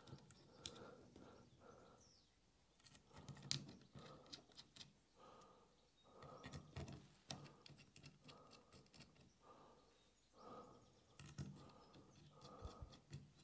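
Near silence with faint, scattered clicks and taps of small bolts, locking washers and shims being handled and set against a metal plate.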